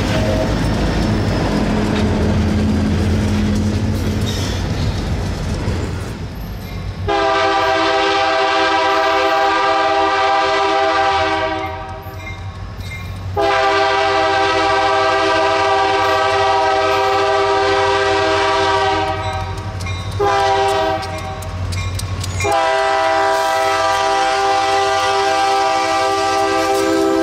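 Diesel locomotive horn sounding the grade-crossing signal, a chord of several notes: two long blasts, a short one, then a long one that runs on. It starts about seven seconds in, after a steady low rumble from the locomotive's diesel engine.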